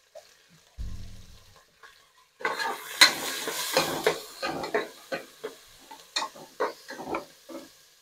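Chopped onions and green chillies sizzling in hot oil in an aluminium pressure cooker, a steel ladle scraping and clinking against the pot as they are stirred, from about two and a half seconds in. A dull thump comes about a second in.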